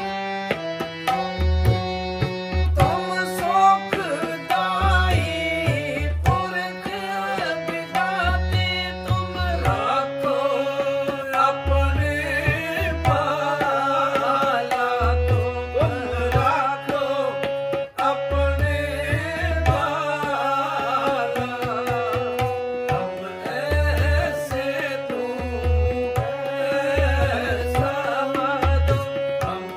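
Sikh kirtan music: tabla keeping a steady rhythm under a harmonium's held melody. A voice takes up the singing about ten seconds in.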